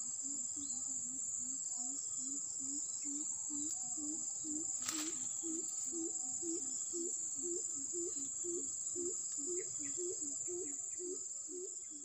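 Steady high-pitched insect trilling, with a low rising call repeated about two to three times a second underneath. There is a single sharp click about five seconds in.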